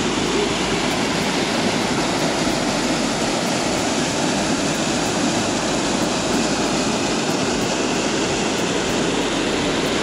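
Waterfall: whitewater of a mountain stream pouring over rock, a steady loud rush of water.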